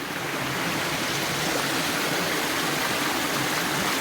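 River water rushing and tumbling over rocks near a waterfall, a steady roar that grows a little louder in the first second.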